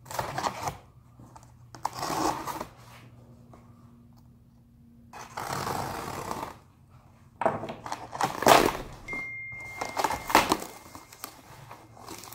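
A cardboard shipping box is being opened by hand. Packing tape and cardboard flaps give off rips and scrapes in uneven bursts, with a cluster of sharp thumps and rustles in the second half as the flaps are pulled open.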